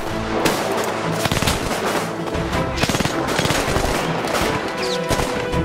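Gunfire in a shootout: many shots in quick succession, with a music score running underneath.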